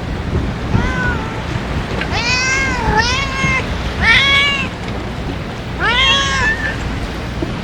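Stray cat meowing about five times in short, rising-and-falling calls, over a steady rush of wind noise.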